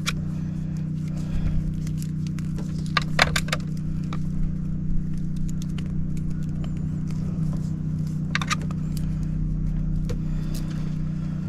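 Scattered small clicks and light rattles of hands working wires and small tools, over a steady low hum.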